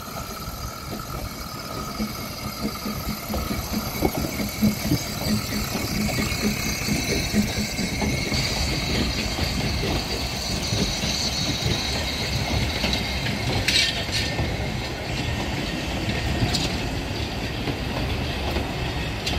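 Narrow-gauge steam train passing close by: the locomotive's exhaust beats sound at a steady rhythm as it comes up, then the coaches roll past with wheel clatter, wheel squeal on the curve in the middle, and a sharp clank just after.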